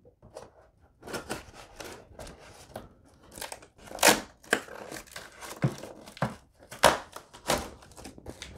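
Bayonet blade stabbing into and slicing through a heavily taped corrugated cardboard box, making a string of irregular sharp rips and crunches as the cardboard and packing tape tear. The loudest rips come about four and seven seconds in.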